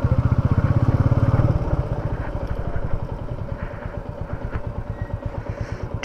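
Royal Enfield Meteor 350's single-cylinder engine running at low speed with an even beat, louder for about the first second and a half, then dropping to a quieter beat.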